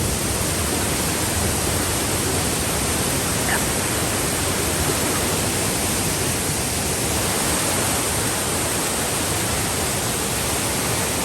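Waterfall on a hill stream: water falling over rock, a steady, unbroken rush.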